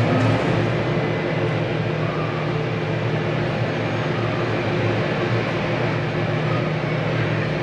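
Airbus A321 jet engines idling: a steady drone with a few held tones.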